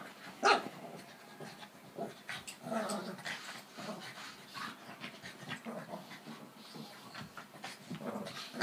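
Black Labrador and Boston terrier play-wrestling, with panting and scuffling throughout and one short, sharp dog sound about half a second in.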